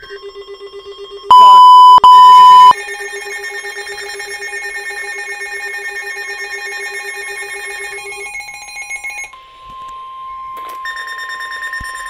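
Several weather alert radios sounding their tornado-warning alarms at once: rapid pulsing beeps in several pitches, with two very loud steady beeps about a second and a half in. From about nine seconds in, a single steady tone sounds instead, like the NOAA Weather Radio warning alarm tone.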